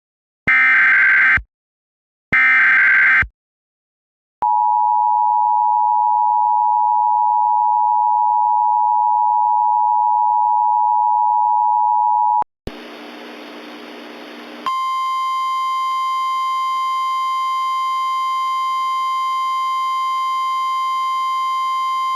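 Emergency Alert System tones: the last two bursts of the digital SAME header, then the two-tone attention signal held for about eight seconds. It cuts off into about two seconds of static hiss, then a steady single alert tone just above 1 kHz, like the NOAA Weather Radio 1050 Hz warning tone.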